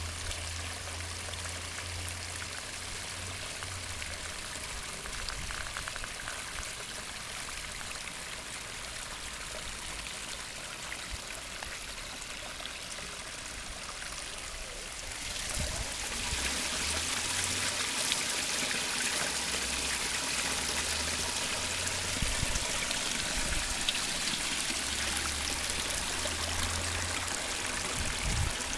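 Garden pond waterfall and stream cascade: water splashing and running over rocks in a steady rush, which becomes louder and brighter about halfway through.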